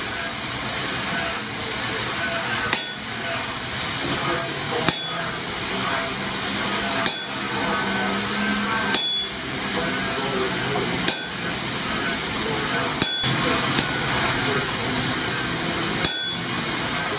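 Hammer blows on hot steel at an anvil, about one every two seconds, each a sharp strike with a short metallic ring: a blacksmith driving a punch through an axe head to open the eye.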